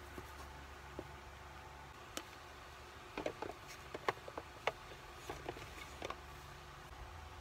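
Faint, scattered light taps, clicks and rustles of hands handling paper sticker cards, a clear acrylic holder and a small kraft-paper box on a desk. The taps come in a quick cluster from about three to six seconds in, over a low steady room hum.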